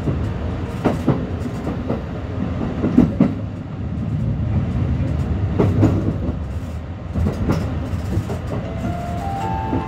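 HB-E300 series hybrid train heard from its driver's cab, running slowly with a steady low rumble. Paired clicks every couple of seconds come as the wheels cross rail joints and points. Near the end a short series of stepped, rising tones begins.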